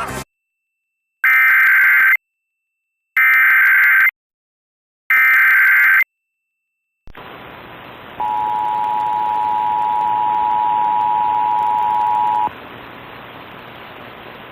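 Emergency Alert System signal for a tornado warning. First come three one-second bursts of the digital data header, with silence between them. A few seconds later the steady two-tone attention signal sounds for about four seconds over a low hiss.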